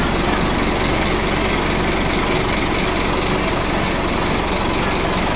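Diesel engine of a Scania N310UA articulated bus running steadily, heard inside the cabin from the back seat near the rear-mounted engine.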